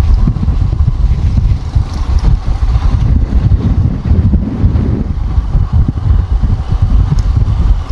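Ride noise on a motorcycle: a loud, continuous low rumble of wind buffeting the rider's microphone, mixed with the bike's engine and tyre noise.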